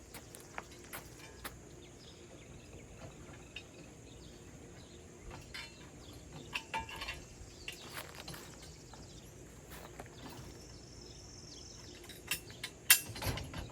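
Insects chirring steadily in a high band, fading out near the end, with scattered light clicks and knocks from kayak rack parts and tools being handled. A louder pair of knocks comes about 13 seconds in.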